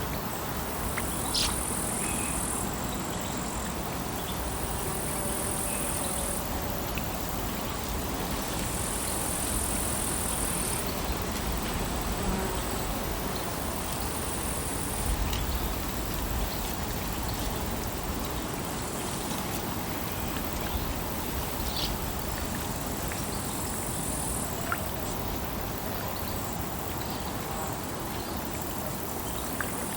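Lakeside ambience: a steady wash of water, with a high insect buzz that comes and goes in spells of a couple of seconds and a few faint clicks.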